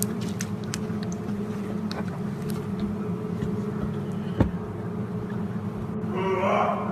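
A steady low hum at several fixed pitches, with a single sharp click about four and a half seconds in and a brief wavering cry near the end.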